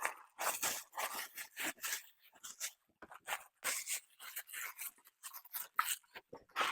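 Boxes of soapmaking butters being closed up by hand: a run of irregular rustling, crinkling and scraping of the packaging.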